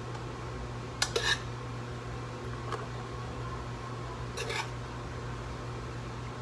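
Kitchen clatter: a few sharp clinks of dishes or utensils, about a second in and again at about four and a half seconds, over a steady low hum.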